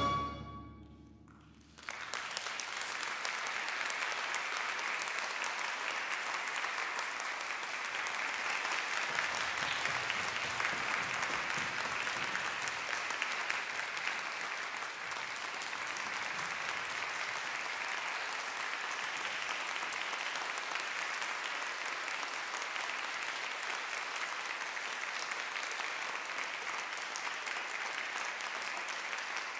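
Final chord of a brass band ringing away in a concert hall, then after a brief silence the audience applauding steadily.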